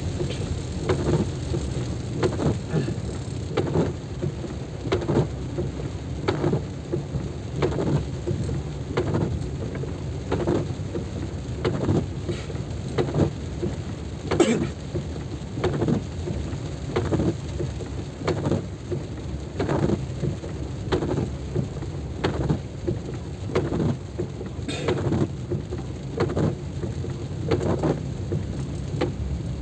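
Heavy rain with a steady low rumble, and a soft knock about once a second.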